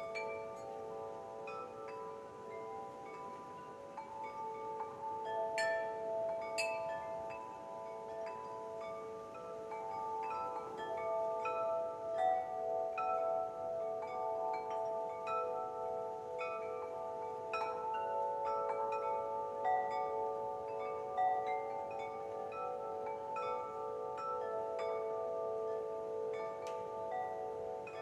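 Wind chimes ringing: many tubes struck at random moments, their clear overlapping tones ringing on and blending into a continuous shimmer.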